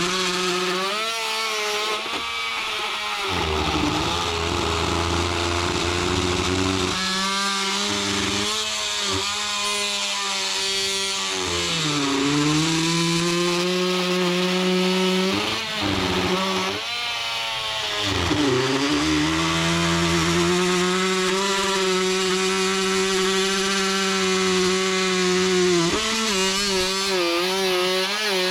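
Oscillating multi-tool making a plunge cut into dry 2x wood: a steady, high buzz whose pitch sags several times as the blade bogs down in the cut, then recovers.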